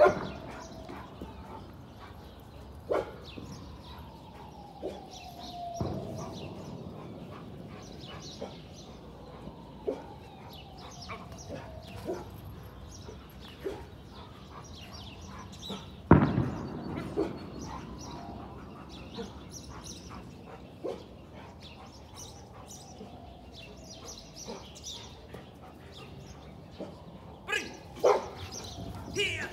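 A dog barking now and then: a few separate short barks, the loudest about halfway through.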